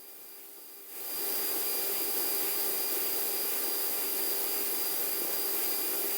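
Steady rushing air and engine noise of a Boeing 737-800 in cruise, a loud even hiss with a few faint steady tones under it. It steps up sharply about a second in.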